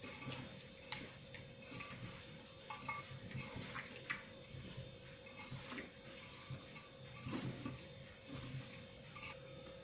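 A hand mixing raw beef with spice powders and coconut oil inside an aluminium pressure cooker: faint, irregular mixing noise with small clicks against the metal pot.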